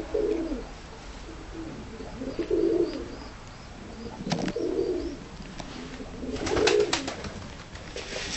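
Domestic tumbler pigeons cooing: four coos about two seconds apart, with a few short sharp clicks in the middle and near the end.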